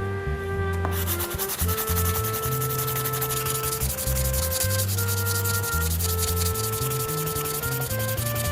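Fast, continuous abrasive rubbing, like sanding, starts about a second in and carries on over background music with a held melody.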